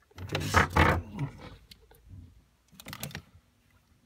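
Light clicks and rattles of a three-port motorised valve's manual lever and metal actuator cover being worked by hand. There is a burst near the start and a cluster of clicks about three seconds in. The lever has very little play, the sign that the valve is sitting in its hot-water position.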